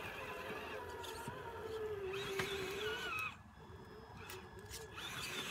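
Traxxas TRX-4 RC crawler's electric motor and geared drivetrain whining as the truck climbs over rocks, the pitch wavering with the load, then dropping away suddenly about three seconds in as the throttle eases, followed by a few light clicks.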